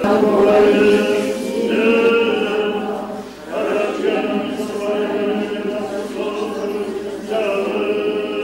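A group of voices chanting together in long held phrases, with a few short breaks between phrases.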